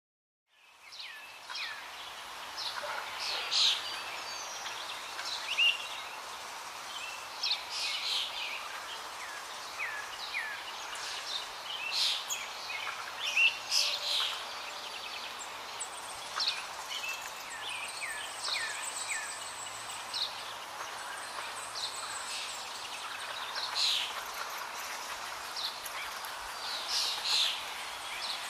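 Birds chirping and calling: many short, quick chirps and rising and falling whistles over a steady background hiss, fading in just after the start.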